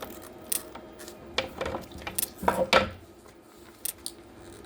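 Small metal parts being handled on a workbench: a string of light clicks and clinks, with a louder cluster of knocks a little past halfway, as the hex bolts come out and the dive light's body is worked loose.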